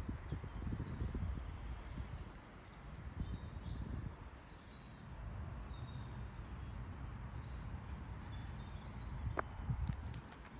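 A cat's claws scratching and raking tree bark in irregular strokes, with small birds chirping repeatedly in the background and a few sharp clicks near the end.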